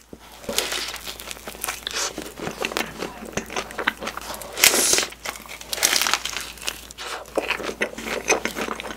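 Close-miked eating of a strawberry crepe filled with whipped cream: bites and chewing with many small irregular clicks, and one louder, longer burst about halfway through.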